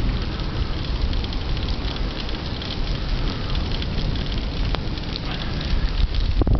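Rain pattering with a steady hiss and dense fine ticks, under a low wind rumble on the microphone of a moving bicycle.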